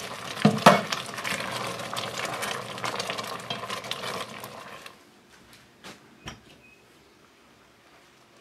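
Strawberry and watermelon jam at a rolling boil in a stainless steel pot, bubbling and spattering while a spoon stirs it, with two knocks near the start. This is the four-minute boil that sets the jam. About five seconds in, the bubbling cuts off suddenly, leaving only a few faint knocks.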